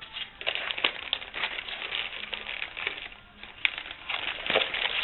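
Plastic packaging crinkling and rustling in irregular bursts as it is handled and unwrapped, with a short lull a little past three seconds in and the loudest crackle near the end.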